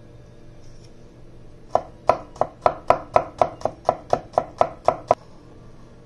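Chinese-style cleaver chopping rapidly on a bamboo cutting board: a run of about fourteen sharp knocks, roughly four a second, starting about two seconds in and stopping about a second before the end.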